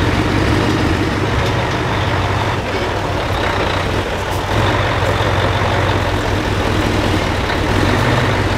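Diesel engine of a Mercedes-Benz 8x8 trial truck working under load as it crawls through a deep rut. The engine eases off a few seconds in and picks up again about a second later.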